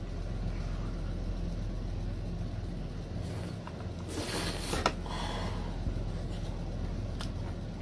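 A wet bite and slurp into a whole canned marinated octopus about four seconds in, the loudest sound, followed by a couple of short mouth clicks as she chews. A steady low hum runs underneath.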